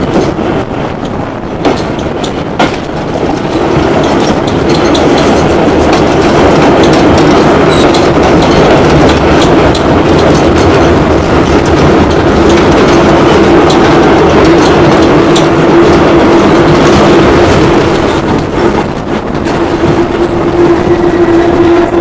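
Steam tram train running along the track, heard from an open carriage platform: a steady rumble and clatter of the wheels on the rails. A steady hum comes up after a few seconds, and there are two sharp knocks within the first three seconds.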